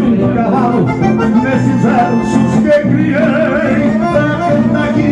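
Live gaúcho folk music: a man singing over acoustic guitar and band accompaniment.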